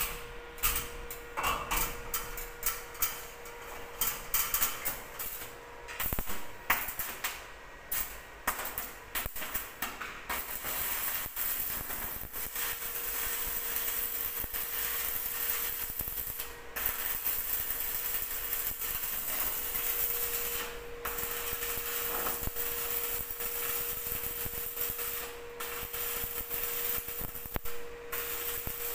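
Electric arc welding on steel beams: the arc crackles and sizzles steadily from about ten seconds in, breaking off briefly three or four times as the welder stops and restarts. Before that come irregular sharp taps and clicks.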